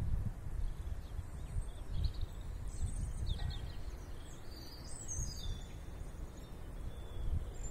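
Wind buffeting the microphone as a low, uneven rumble, with a few small birds chirping faintly in the background.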